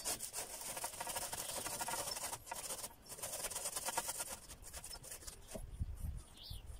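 Beetroot grated on a metal box grater into a plastic bowl: rapid repeated rasping strokes. The strokes stop about five seconds in.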